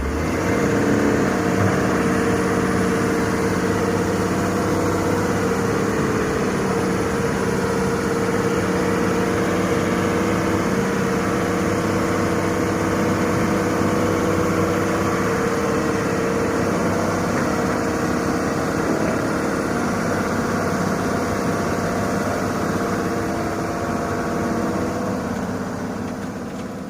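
Heavy diesel engine of the excavator or sand truck running steadily, its pitch shifting slightly now and then, fading out near the end.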